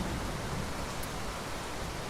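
Steady rain falling with an even hiss, and a low rumble of thunder underneath that eases off about halfway through.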